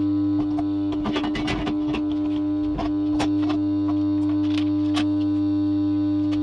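Cheap AC stick (SMAW) welder's transformer humming steadily while switched on and idle, with a few sharp metallic clicks and knocks as the steel workpiece and leads are handled, mostly in the first half.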